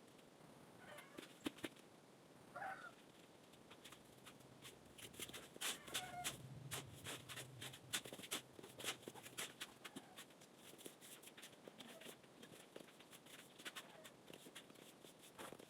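Faint short animal calls, three or so, among many scattered light clicks and taps that come thickest around the middle.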